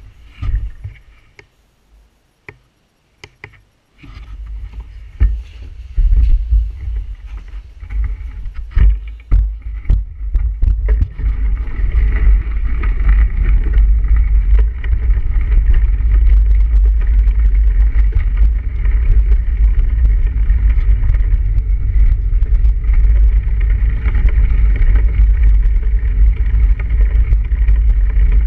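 Heavy wind noise on the microphone and tyre noise from a bike moving over snowy streets, building up after a few seconds and then running steadily. A few knocks and clicks come first, while the bike is being handled indoors.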